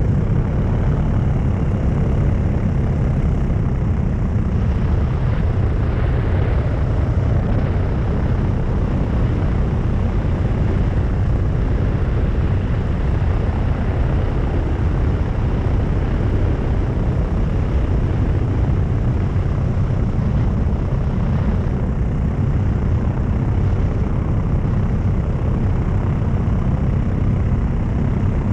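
Paramotor engine and propeller running steadily at constant power, a loud low drone with no change in pitch.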